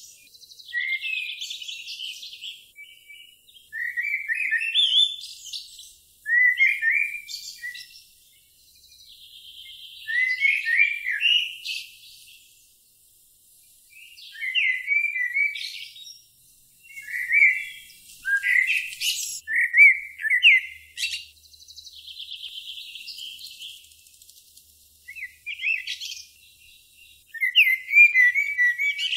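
Songbird singing short high phrases again and again, with pauses of a second or two between them.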